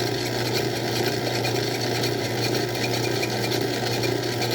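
Craftsman 109 bench lathe running steadily under power with a constant hum and light rapid ticking, the tool cutting into the workpiece and throwing chips.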